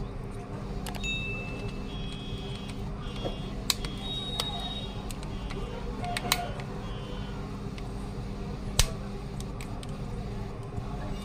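Plastic back cover of a Samsung B313E feature phone being pressed and snapped into place by hand, giving a few sharp clicks, over a steady background hum.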